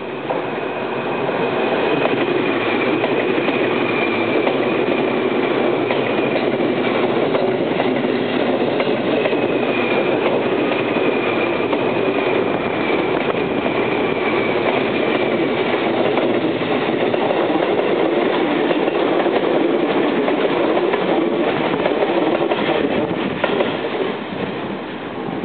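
Seibu 2000 series ten-car electric commuter train passing close by on a curve: a steady rumble of wheels on the rails with clicking over the rail joints, building over the first two seconds. A faint high tone falls slowly in pitch over about the first fifteen seconds, and the noise eases slightly near the end.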